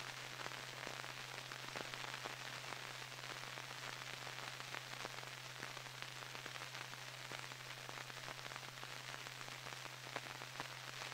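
Steady hiss with scattered crackles and pops over a low steady hum: the background noise of an old film or tape soundtrack with nothing recorded on it.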